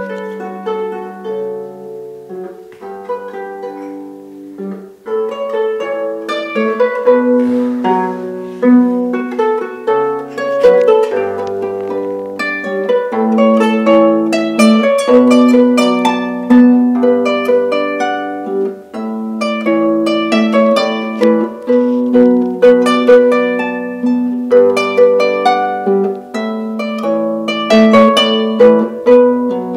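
A small wooden harp played by hand: a plucked melody over lower notes, each note left ringing into the next. It starts softly and grows fuller and louder about five seconds in.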